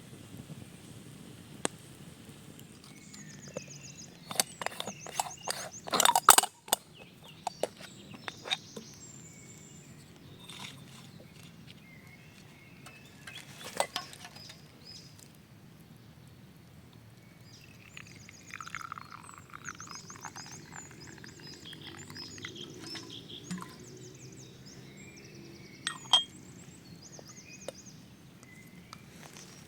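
Forest ambience with high, repeated calls from small animals or birds, broken by a flurry of sharp clicks and knocks a few seconds in and occasional single knocks later. There is some rustling past the middle.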